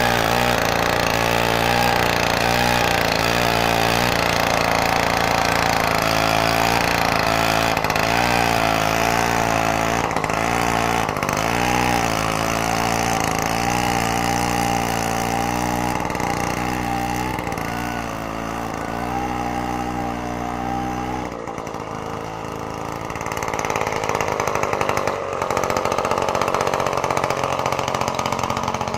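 Single-cylinder two-stroke engine of a Druzhba chainsaw driving a homemade snowblower, running with its pitch wavering up and down as the load changes. About 21 seconds in the sound changes abruptly: the low engine note drops away and a noisier, hissing sound carries on.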